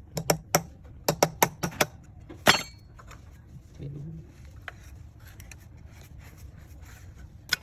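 A quick run of about eight sharp taps or knocks of hard objects, then a louder clink with a short ring, and one more knock near the end.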